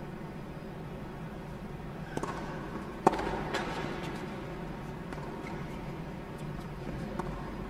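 Tennis ball struck by rackets during a point: a softer hit about two seconds in, then a sharp, loud pock about a second later, followed by fainter ticks, over a steady background hum.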